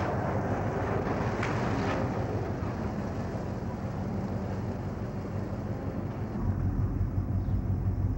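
Van engine running with street traffic noise; about six seconds in the sound changes to a louder, lower, pulsing engine rumble heard from inside the van's cab.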